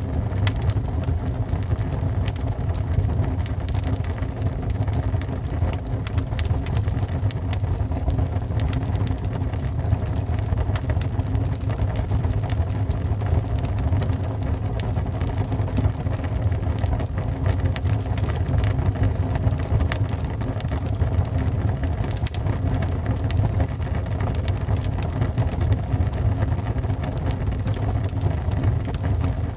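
Wood fire burning in a fireplace: a steady low rumble of flames with frequent small crackles and pops from the logs.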